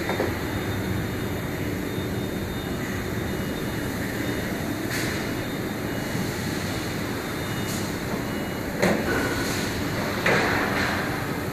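Steady machinery noise in a composite-parts factory workshop, with a few sharp knocks or clatters, about five, nine and ten seconds in.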